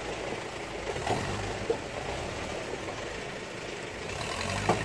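Off-road vehicle engine idling steadily, with a few short knocks, the sharpest near the end.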